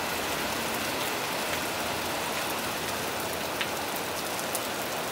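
Heavy downpour falling steadily on a zinc sheet-metal roof, an even hiss of rain with a few sharper single drop hits.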